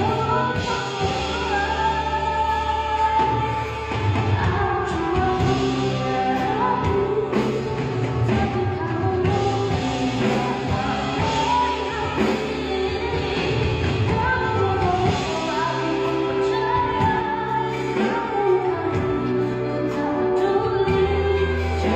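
A female singer singing a pop ballad into a handheld microphone, amplified, over a live band with electric guitar and bass.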